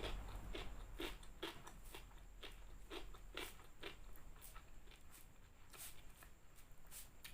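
Close-up crunching and chewing of crispy fried chicken coating, a run of sharp crunches about two a second for the first four seconds, then fainter and sparser.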